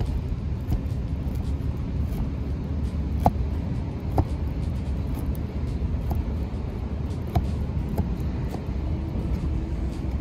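Kitchen knife cutting down through the crisp, pan-fried crust of a pressed-rice burger onto a wooden board, giving a few separate sharp crunchy clicks spread through the cut. Under it runs a steady low rumble like road traffic.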